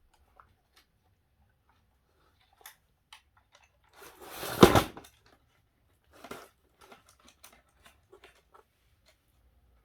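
Scattered light clicks and taps of a plastic vacuum-cleaner housing being worked by hand, with one loud ripping scrape about four seconds in, lasting about a second, as the wiring from the switch is pulled free.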